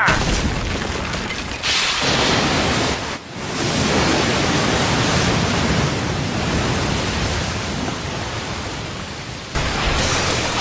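Anime fight sound effect: a loud, steady rushing of wind-like noise as a blast sweeps dust and debris along, with a short dip about three seconds in.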